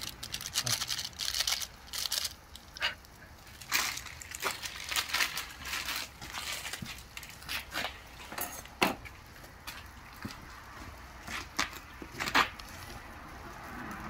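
A pot of ramen boiling hard over a burning solid-fuel can: irregular crackling and popping, with one louder pop near the end.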